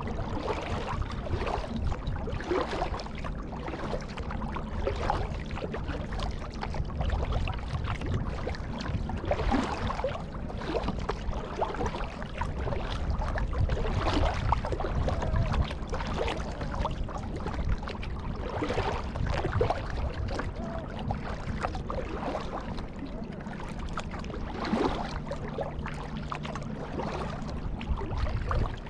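Kayak paddle strokes through the water, with splashing and water washing along the hull. The strokes come irregularly, every second or few.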